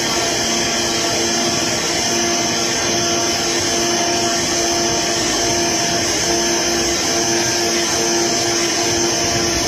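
AOKE CNC flatbed sample cutter running as its tool head works a corrugated cardboard sheet: a steady whirring hum with several held tones and a high hiss.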